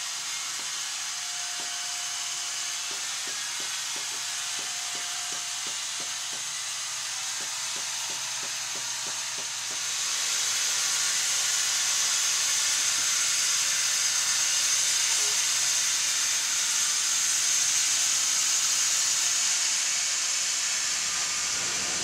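Wood-Mizer WB2000 wide band sawmill cutting through a log: a steady high-pitched rush of sawing noise that grows louder about halfway through. Through the first half a light regular ticking, about three a second, runs underneath.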